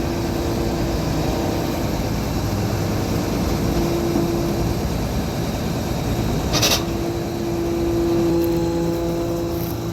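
Semi truck's diesel engine running steadily, with a brief sharp noise about two-thirds of the way through.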